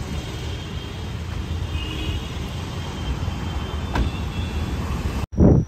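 Steady street traffic rumble, with a single sharp thump about four seconds in. It cuts off abruptly near the end and a brief loud sound follows.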